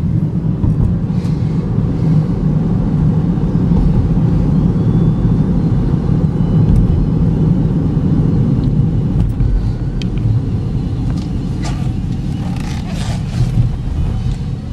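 Steady road and tyre rumble with engine hum inside the cabin of a 2013 GMC Terrain with the 2.4-litre four-cylinder, cruising at about 42 mph. A few faint ticks come near the end.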